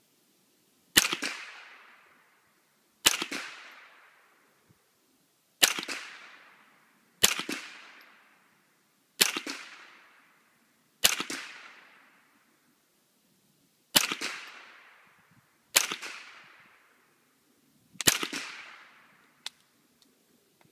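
A .22 LR rifle (Core 15 .22 LR upper on an AR-15 lower) fired semi-automatically at a slow, steady pace: nine single shots about two seconds apart, each with a short echo. A small click follows near the end.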